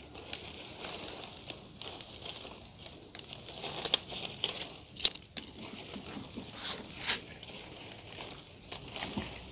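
Hands handling a bird's nest fern's root ball and leaves: irregular rustling and crackling of leaves, roots and potting soil.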